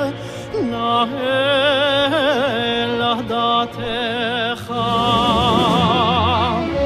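Cantor singing a cantorial (chazzanut) passage in a run of ornate phrases with strong vibrato, broken by short breaths, over orchestral accompaniment. Low accompanying notes grow stronger in the last couple of seconds.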